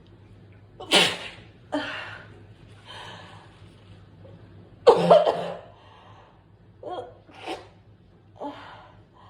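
A person sneezing: one sneeze about a second in and a louder one about five seconds in, with several shorter breathy sounds between and after them.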